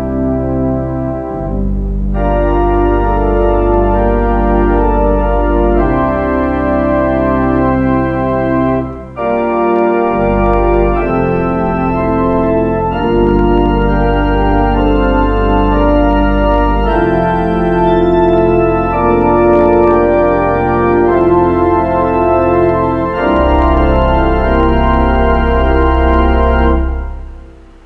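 Church organ playing slow, sustained chords over deep pedal bass notes that change every few seconds. The sound dips briefly about a third of the way in, and the phrase dies away just before the end.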